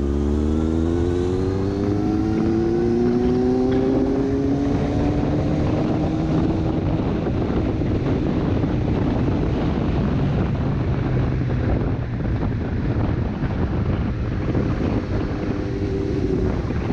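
Motorcycle engine pulling hard under acceleration, its pitch rising steadily over the first six or seven seconds before levelling off, heard from the rider's own bike. After that, wind noise rushing over the microphone at riding speed covers most of the engine.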